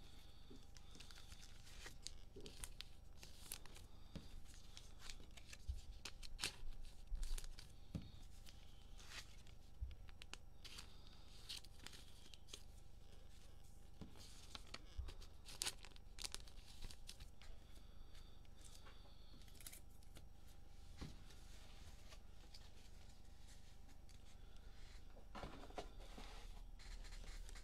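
Faint tearing and crinkling of football trading-card cello pack wrappers being opened, with scattered light clicks and rustles of cards being handled.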